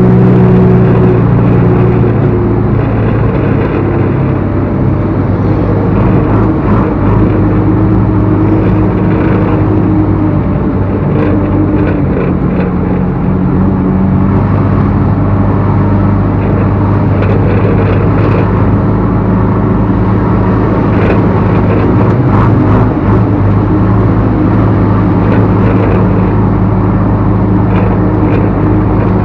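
Backhoe loader's diesel engine running loud and steady, its pitch shifting a little now and then, with a few short knocks scattered through.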